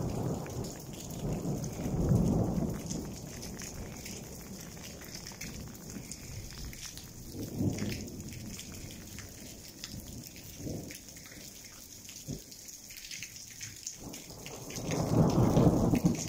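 Thunder rumbling in three long rolls, the loudest near the start and near the end, over a steady patter of rain.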